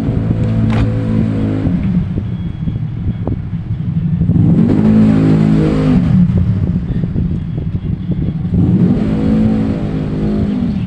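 A motor vehicle engine running with a steady low rumble, revved three times: each rev rises and falls in pitch over a second or two.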